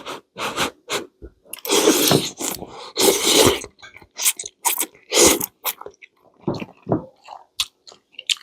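A person eating noodles close to the microphone: irregular slurps, two longer ones near the start, between wet chewing clicks.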